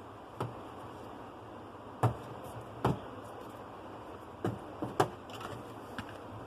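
Small hard objects handled on a repair bench: about seven sharp clicks and taps, the loudest about two, three and five seconds in, over a steady background hiss.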